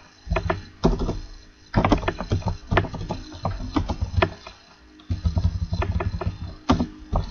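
Typing on a computer keyboard: irregular key clicks, several a second, with a few duller thumps among them.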